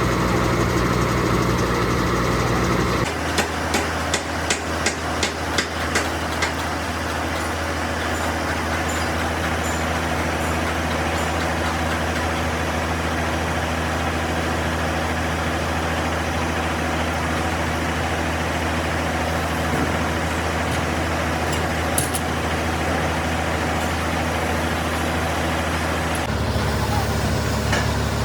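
A large engine running steadily. Its note changes about three seconds in and again near the end, and a quick series of sharp metallic knocks sounds a few seconds in.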